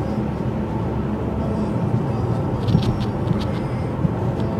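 Road noise heard from inside a moving car: a steady rumble of tyres and engine at cruising speed, with a few light ticks a little under three seconds in.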